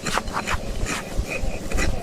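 Hand tool scraping and cutting at a donkey's hoof in a few short strokes during hoof trimming.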